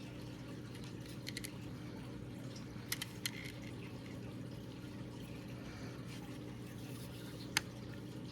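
A few light clicks and taps of plastic replica sword parts being handled and fitted together, over a steady low background hum.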